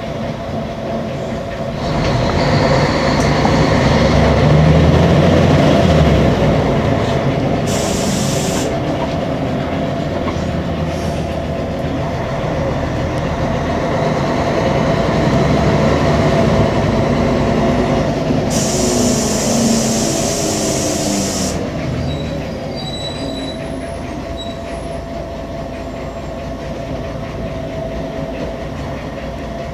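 Mercedes-Benz O500MA articulated bus heard from on board: the engine and drivetrain run with a steady whine, pulling harder from about two seconds in and easing off later. Two bursts of high hiss come through, a short one about eight seconds in and a longer one about nineteen seconds in.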